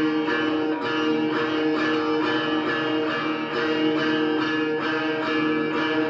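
Instrumental passage of a heavy metal song: guitar playing sustained chords over a steady beat, with no vocals.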